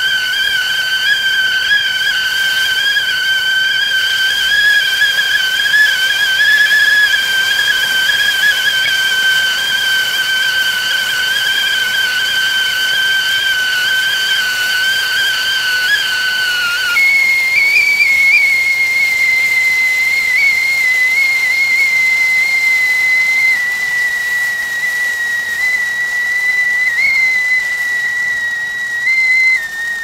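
Tea kettle whistling at the boil, a steady, slightly wavering shrill tone over a hiss of steam. A little past halfway it jumps abruptly to a higher pitch and carries on there.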